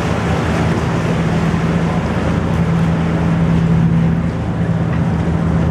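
Canal tour boat's engine running steadily, a low even hum over a steady rushing noise, heard on board as the boat passes under a bridge.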